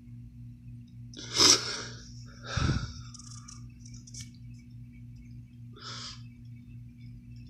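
A man breathing close to a phone's microphone: a loud breath about a second and a half in, another with a low thump of air near three seconds, and a softer one about six seconds in, over a steady low hum.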